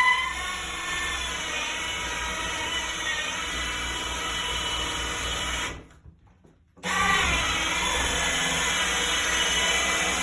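Electric drill running a 2-1/8 inch hole saw through wood, a steady whine; it stops briefly about six seconds in, then starts again and winds back up to speed.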